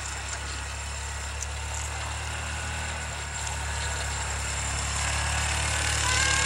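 Engine of a Yamaha Rhino side-by-side UTV running steadily as it tows snow tubes, getting louder toward the end as it comes closer.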